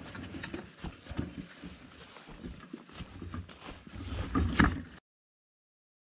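Footsteps and rustling while walking along a grassy forest path, with irregular soft knocks and brushing. A louder rustle comes about four and a half seconds in, then the sound cuts off to complete silence.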